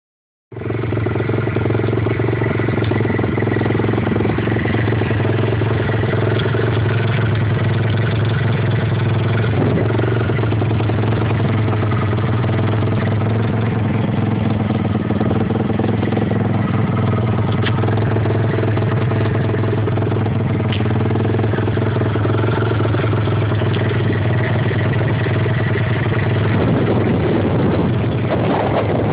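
Pit bike engine idling steadily, with a slight wavering in pitch near the end.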